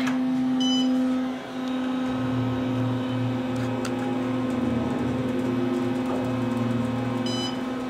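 Otis hydraulic elevator setting off upward after a floor button press: a steady hum with a low rumble of the car's travel coming in about two seconds in. There is a short electronic beep just under a second in, and another near the end.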